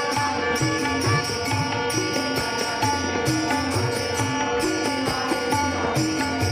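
Music with a steady beat under a melody of short held notes.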